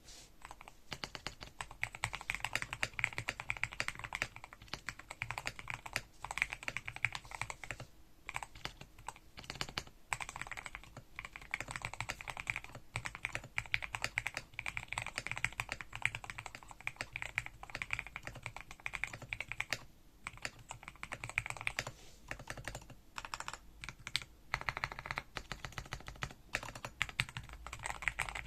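Typing on a GMK67 mechanical keyboard with Gateron Milky Pro Red linear switches and PBT XDA-profile keycaps: a fast, steady stream of keystrokes, broken by a few brief pauses.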